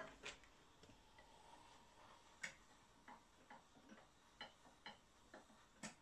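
Faint, irregular clicks and taps of a tool working in the crucible of a small electric metal melting furnace holding melted brass, the clearest about two and a half seconds in and just before the end.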